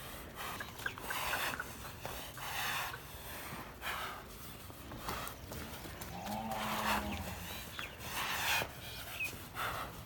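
Bull breathing heavily, a loud breath roughly every second and a half, with one short low grunt about six and a half seconds in.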